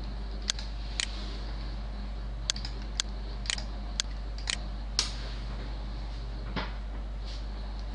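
About nine short, sharp clicks of a computer mouse, several coming half a second apart, over a steady low hum.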